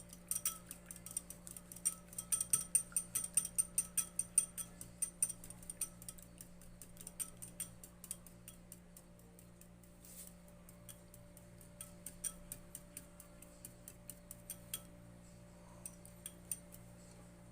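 Two eggs being beaten in a bowl: quick, even clicks of the utensil striking the bowl, about five a second. The clicks grow fainter and sparser about halfway through.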